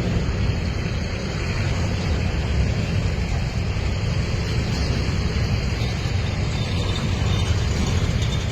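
Two EMD G22 locomotives' V12 two-stroke diesel engines running hard in a steady, deep rumble, working under load to haul a train up a steep grade.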